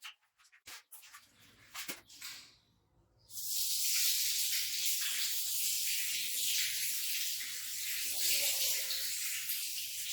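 A few light clicks and taps, then about three seconds in a pressure washer starts spraying water onto a rug: a loud steady hiss.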